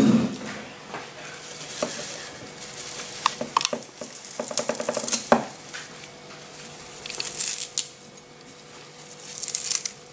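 Cutlery and plates being handled on a countertop. Scattered light clinks and clicks, a quick rattle of clinks about four to five seconds in, and a couple of brief scraping rustles near the end.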